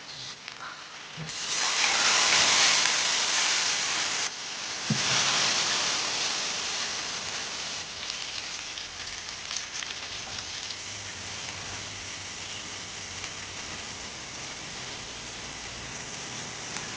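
Food sizzling in hot oil in a pan. A loud sizzle starts about a second in, breaks off briefly, comes back, then settles to a quieter steady sizzle.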